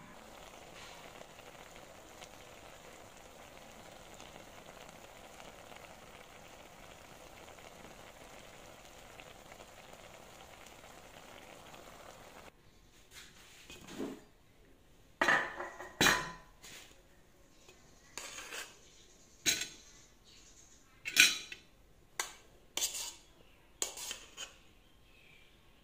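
A steady, soft hiss from the covered steamer pot of fish for about the first half. It stops suddenly, and about two seconds later comes a series of about ten clinks and scrapes as a metal spoon scoops rice out of a metal pot and knocks it onto a plate.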